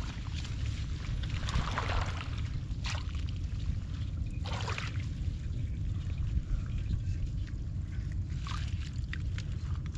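Shallow water splashing and sloshing as hands pull water hyacinth away and reach into the water, with several brief splashes, over a steady low rumble.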